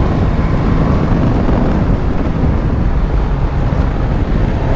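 Steady wind rush on the microphone over the running engine and road noise of a Suzuki GSX-S1000GT inline-four motorcycle ridden at speed.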